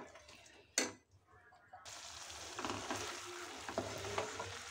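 Soya chunks in sauce sizzling in a hot non-stick pan while a wooden spatula stirs and scrapes them. There is a single knock about a second in, and the steady sizzle starts suddenly about two seconds in.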